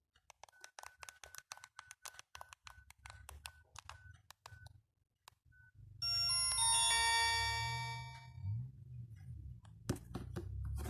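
Alcatel One Touch 1013D mobile phone being operated: its keys click in quick succession, each press with a short keypad beep, for about four and a half seconds. About six seconds in, a short melody of electronic tones plays from its speaker for about two and a half seconds over a low rumble, and a few more clicks follow near the end.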